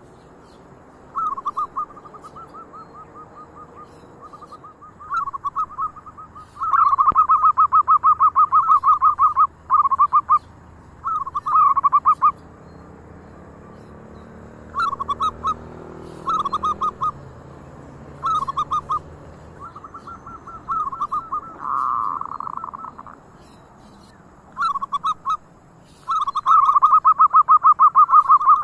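Zebra doves (perkutut) cooing: repeated phrases of rapid pulsing coo notes, some short and some drawn out over two or three seconds, with fainter phrases between the loud ones.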